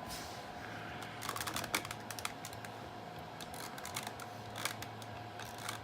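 Scattered light clicks and taps of pachinko machine parts being handled and set down, over a faint steady hum.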